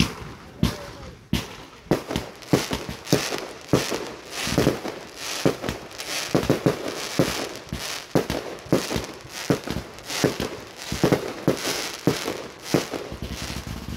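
Consumer firework canister shells launching and bursting overhead: a rapid string of sharp bangs, roughly two a second, with crackling between them.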